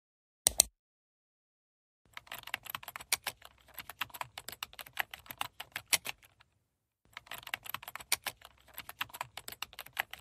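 A single click about half a second in, then fast typing on a computer keyboard: a rapid run of key clicks with a short pause midway.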